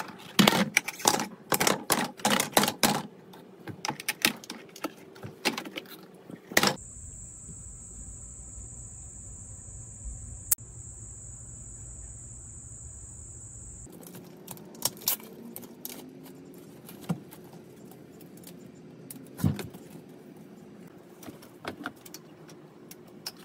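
Loose white plastic stair railing rattling and clacking as it is handled and lifted out of its bracket: a quick run of hard knocks through the first three seconds, then sparser single taps and knocks.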